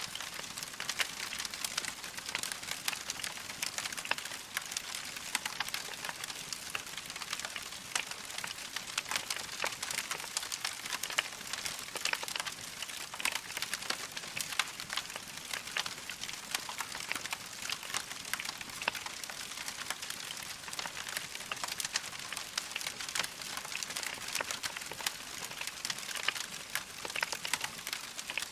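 Wood fire crackling steadily, a dense run of small pops and snaps with no pause.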